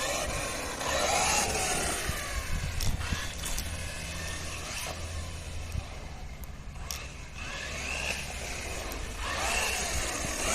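Brushless motor and drivetrain of a 1/8-scale RC truggy whining up and down in pitch as it is driven on and off the throttle. It carries an odd noise that the owner can't explain and suspects may come from differentials lacking proper grease.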